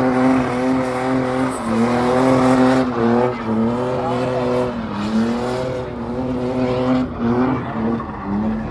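BMW drift car's engine held at high revs through a drift. The note dips briefly and climbs back again several times as the throttle is worked, over the noise of tyres sliding on the tarmac.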